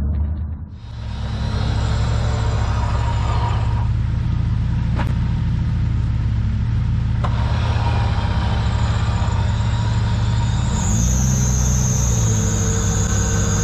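Off-road 4x4 engine running steadily at low revs while the vehicle sits stuck in a muddy rut, with the hiss of heavy rain. A thin high whine joins in for the last few seconds.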